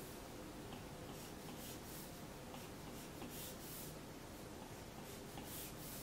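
Stylus tip scratching across an iPad's glass screen in short, irregular strokes while drawing lines, over a faint steady room hum.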